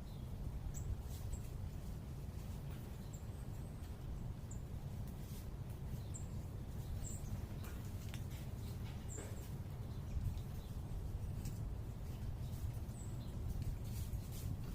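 Small birds giving short, high chip calls, scattered every second or two, over a steady low urban rumble.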